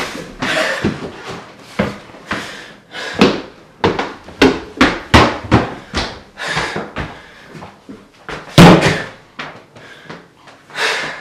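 Heavy stomping footsteps on wooden stairs, sharp thuds at an uneven pace of about one or two a second, with one much louder slam about eight and a half seconds in.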